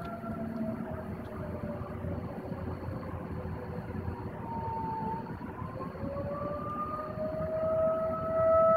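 Outdoor emergency warning siren wailing in a long, slow sweep: its pitch sinks over the first few seconds, then climbs again and grows louder near the end.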